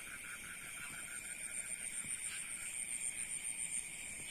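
Night chorus of insects: a steady, high, rapidly pulsing trill with a second, lower steady note beneath it.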